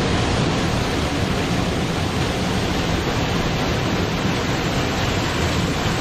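Small waterfall in two streams pouring off a rock ledge into a plunge pool: a steady rush of falling and churning water.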